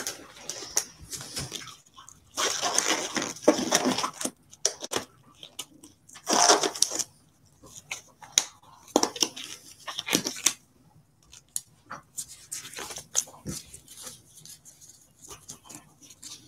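Irregular rustling and crinkling with scattered taps and clicks, as of things being handled, in bursts a second or two long.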